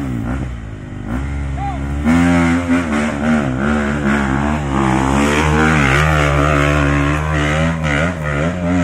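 Trail motorcycle engine revving hard on a steep dirt hill climb. It comes in loud about two seconds in and is held high, with repeated dips and rises in pitch as the throttle works.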